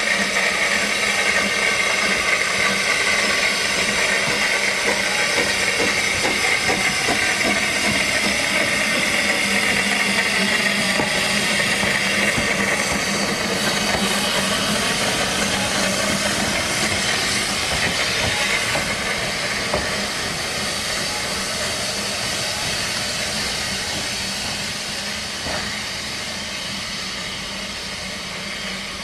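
Steam hissing from the narrow-gauge Manning Wardle 2-6-2T tank engine No.190 'Lyd', steady and loud with a low hum underneath, easing off a little near the end.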